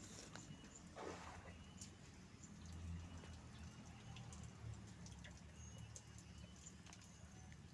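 Near silence: faint outdoor ambience with scattered small clicks, a few short high chirps and a brief soft swish about a second in.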